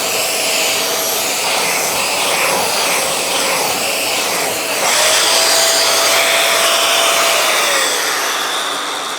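Dyson Ball Animal 3 upright vacuum running on its hose with an air-driven turbine tool attached: a loud, steady rush of suction with a thin whine. It gets a little louder about five seconds in, then the whine drops in pitch and the sound dies away as the machine winds down near the end.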